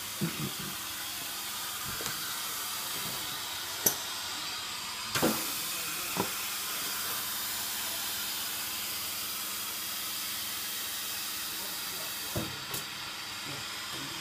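Multi-spindle line boring machine running with a steady hiss, broken by a handful of sharp knocks, the loudest about four seconds in.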